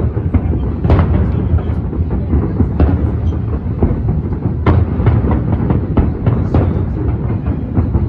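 Aerial fireworks bursting at a distance: a steady low rumble of booms with sharper bangs at irregular moments.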